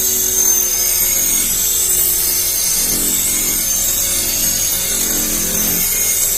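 A power tool running steadily against the workpiece, with a high-pitched whine.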